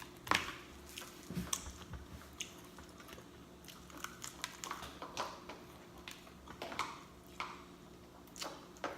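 A person chewing a soft mouthful of coleslaw mixed with mashed potatoes close to the microphone, with irregular wet lip smacks and mouth clicks.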